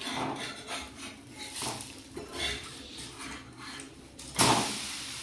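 Metal spatula scraping and prying under a chakuli pitha (rice-batter crepe) on a hot flat griddle, in several short scrapes. About four seconds in the crepe is flipped and a loud burst of sizzling follows, tapering off.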